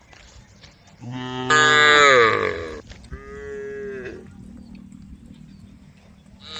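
Cattle mooing: two moos, a long loud one starting about a second in that falls in pitch, then a shorter, quieter one right after.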